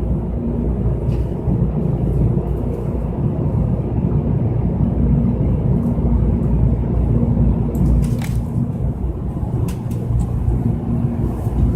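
Steady low rumble and hum inside a halted Shinkansen car, the train's onboard equipment running while it stands still, with a few faint clicks.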